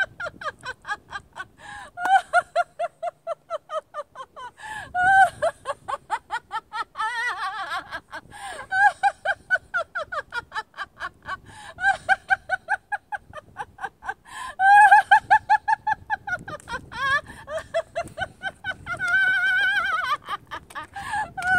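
A woman laughing on and on in long runs of rapid, high-pitched "ha-ha-ha" pulses, several a second, with short breaks for breath: deliberate laughter-yoga laughing.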